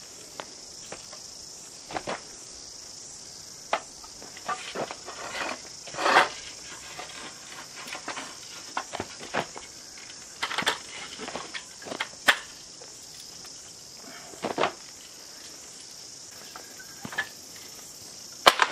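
Steady high-pitched buzz of insects, with scattered knocks and crunches at irregular intervals, the loudest about six seconds in and near the end.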